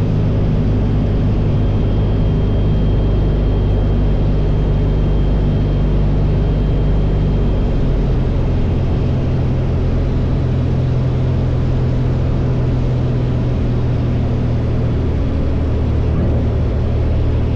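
The AcroSport 2 biplane's piston engine and propeller running steadily on final approach for landing. The engine note shifts about halfway through.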